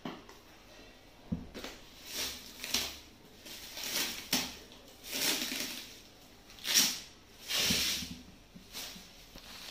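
Clear plastic stretch wrap crinkling and rustling in irregular bursts as it is pulled and peeled off a cardboard box, with a couple of soft thumps.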